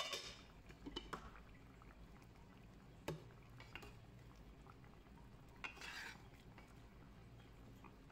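Faint kitchen sounds of a wooden spatula stirring thick fish curry in an aluminium pot, with a few light scrapes and knocks against the pot, the first right at the start and another about six seconds in.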